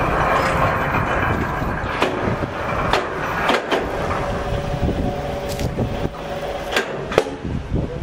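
A pine log being lowered by a crane sling onto a band sawmill's steel bed: steady mechanical noise with a string of sharp knocks and clanks as wood and steel meet, the sharpest a little past the middle and near the end.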